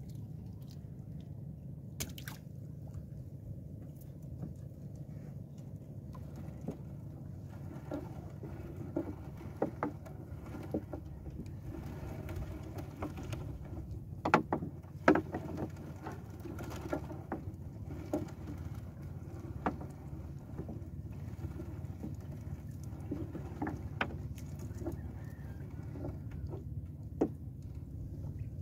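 Fishing net being handled over the side of a wooden outrigger boat: scattered taps and knocks against the hull, the loudest pair about halfway through, over a steady low rumble.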